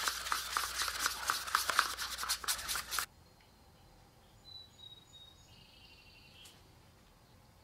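A small stirrer swirling dye into finish in a small plastic cup, scraping and tapping rapidly against the cup's sides. After about three seconds it cuts off suddenly to near silence.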